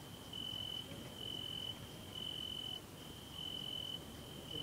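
A cricket chirping in short trills at one steady high pitch, about one trill a second, over a faint low background rumble.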